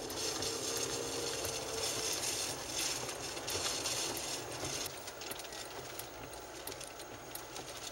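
Steady road and wind noise inside a car driving on a wet highway, with many irregular taps and knocks.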